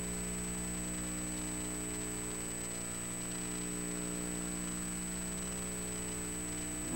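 Steady electrical hum and hiss with a thin high whine above it, unchanging throughout: background noise of the audio line with no programme sound on it.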